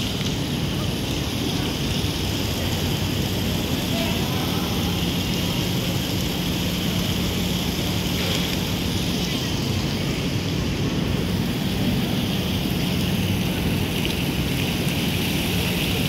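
Steady outdoor street ambience: a continuous low hum under an even hiss, with faint voices of passers-by.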